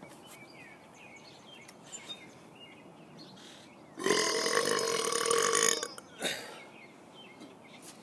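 A man's deliberate long burp, about four seconds in and lasting nearly two seconds, followed about a second later by a brief, quieter burst.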